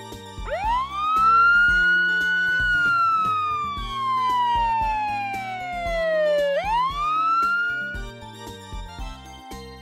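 Police siren wail: one tone rises quickly, holds briefly, then falls slowly over about four seconds, rises again and cuts off about two seconds before the end. It plays over light background music.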